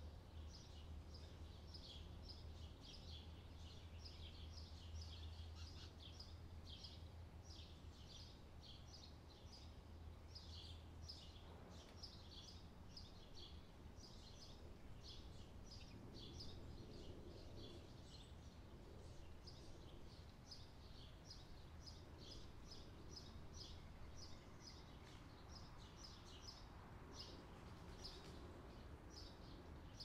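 Faint summer-night ambience: birds chirping in quick, repeated high calls, several a second, over a low steady hum that eases about halfway through.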